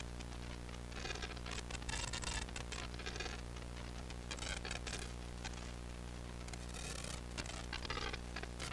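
Steady electrical hum from the band's amplifiers, with short scratchy rustling noises every second or two.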